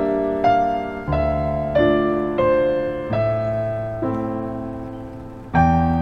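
Background piano music: slow, gentle notes struck about every two-thirds of a second, each fading away, over low bass notes that change with them, with one longer held note near the end.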